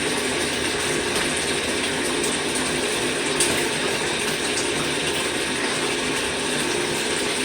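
Steady rush of running tap water as vacuum parts are rinsed off before soaking.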